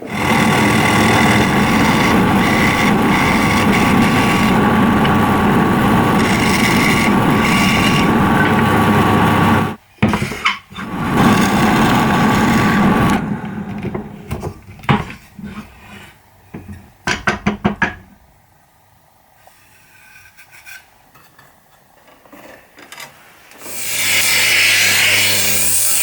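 A tool sanding or cutting wood runs loud and steady for about thirteen seconds, with a brief break near the middle. It gives way to scattered knocks and clatter and a quieter stretch, then starts up again near the end.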